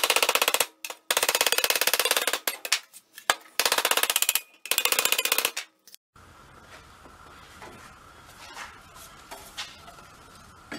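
Hammer beating the thin steel outlet of a chrome motorcycle muffler on a steel workbench, in four quick runs of rapid ringing strikes that sound almost like a drum roll. The runs stop about six seconds in, leaving a quiet background with a few light knocks as the muffler is handled.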